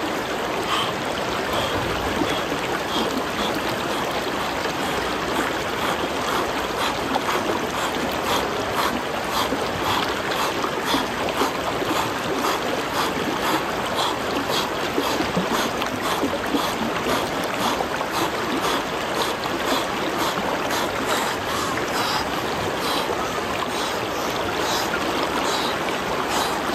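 Shallow river running over rocks and boulders: a steady rushing wash of water, with frequent small splashes close by.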